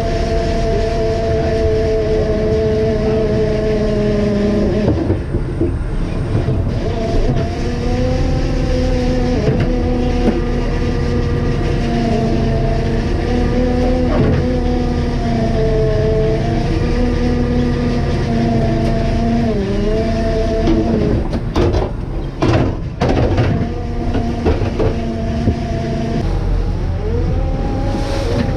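Fishing boat's engine running at a steady drone, its pitch rising and falling slightly, with a few sharp knocks on deck about three-quarters of the way through.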